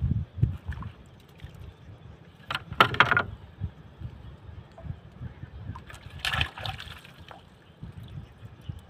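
Water lapping and sloshing against the hull of a small outrigger boat, in irregular low knocks. Two brief louder noises stand out, the loudest about three seconds in and another around six and a half seconds.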